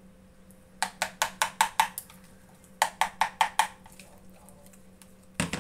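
A metal spoon knocking against the side of a plastic bowl as wet flour batter is beaten: two quick runs of knocks, about six a second, then a louder bump near the end.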